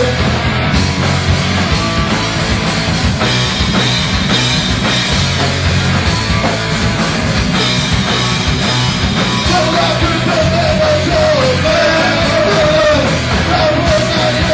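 Punk rock band playing live: distorted electric guitar and drums, loud and continuous, with a singer yelling into the microphone.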